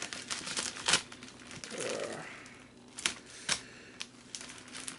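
Plastic shipping bag being slit open with a utility knife: irregular crinkling and sharp crackling clicks, with louder snaps about one second in and again about three and three and a half seconds in.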